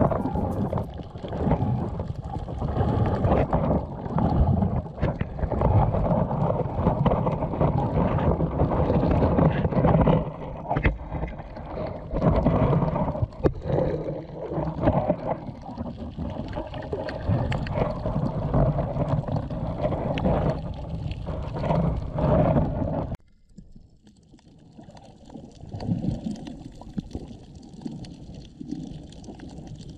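Muffled underwater noise picked up through a camera's waterproof housing: water rushing and knocking against the case as it is moved among the fish in a submerged basket trap. A little over twenty seconds in it drops abruptly to a quieter underwater hiss.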